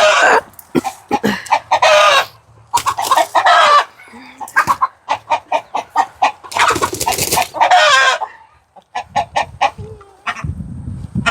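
Chickens squawking and cackling in alarm as they are caught and handled for injections. Several long, loud squawks come about a second in, around two and three seconds in, and again around seven and eight seconds in, with rapid short clucks between them.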